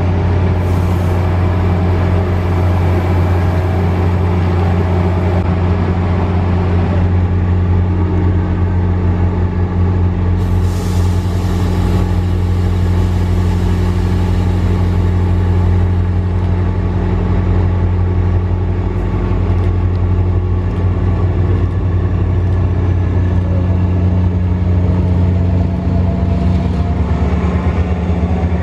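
Diesel locomotive of a VRE commuter train running with a steady, deep drone as the train moves slowly past. Two short hisses come about a second in and about ten seconds in, and a rising whine starts near the end as the locomotive comes alongside.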